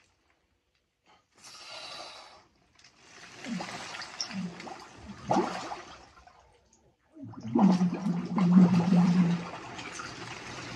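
Ice water sloshing and splashing in an ice bath as a man dunks his head under and comes back up, with a few sharper splashes. About seven seconds in, the loudest part: a drawn-out low groaning breath over the splashing as he surfaces.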